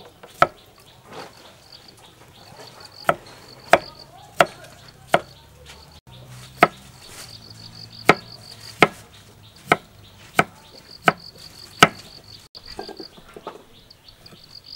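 Kitchen knife chopping cucumber on a thick wooden chopping block: about a dozen sharp knocks, roughly one every 0.7 seconds, stopping about 12 seconds in. Insects chirp in a fast pulsing trill underneath.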